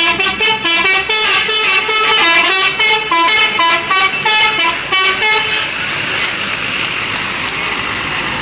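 Indonesian bus 'telolet' horn, a multi-tone musical horn, playing a quick tune of short notes that jump between pitches, about four notes a second. It stops about five and a half seconds in, leaving a steady rushing noise.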